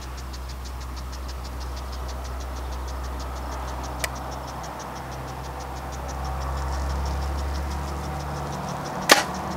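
A compound bow is shot about nine seconds in: one sharp crack as the string is released, with a brief ring. Before it there is a steady low rumble and a fast, even ticking.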